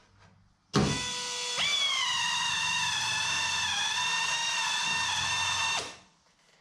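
A pneumatic shop tool runs at speed with a whine and the hiss of air. The whine jumps up in pitch soon after the start, holds with a slight wavering, then winds down and stops near the end.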